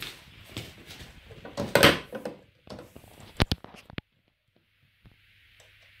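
Handling noise of hands and cables being moved around a small audio amplifier, with a couple of sharp clicks about three and a half seconds in as RCA plugs are pushed into its input jacks.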